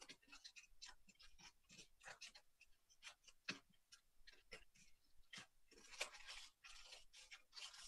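Faint, irregular crinkling and rustling of a paper strip being rolled by hand into a thin tube, with small clicks and a few longer rustles near the end.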